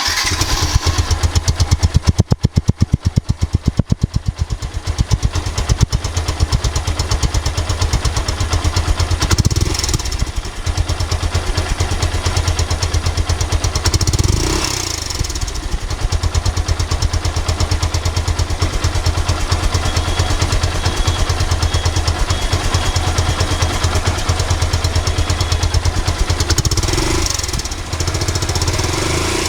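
Motorcycle engine running at idle with a steady pulsing beat, its individual firing strokes loudest in the first few seconds, and short blips of the throttle about ten seconds in, at about fifteen seconds and near the end.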